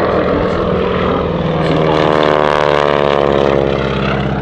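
Grumman G-164 Ag-Cat biplane's engine and propeller passing close, loud, its pitch dropping as it goes by about halfway through, over a steady low drone.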